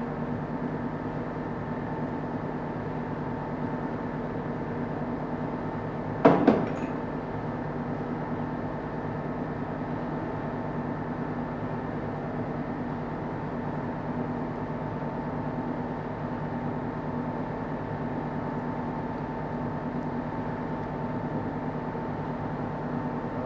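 Steady workshop hum with a constant pitched drone, and about six seconds in a sharp metallic clank, two quick hits with brief ringing, as loose steel engine parts are set down or knocked together.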